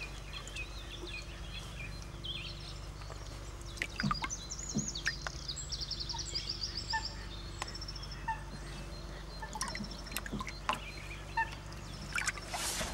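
Birds calling, with scattered high chirps and a quick run of high notes about five to six seconds in, over a steady low hum and a few small knocks.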